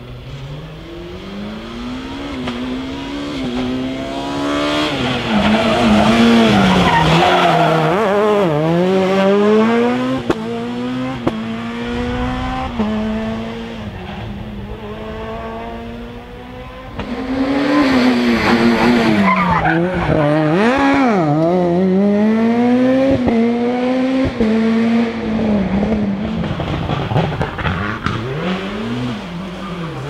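Rally cars on a tarmac special stage passing one after another. The engines rev hard, and the pitch climbs through quick gear changes and drops on lifts into corners. A louder second car comes in about halfway through.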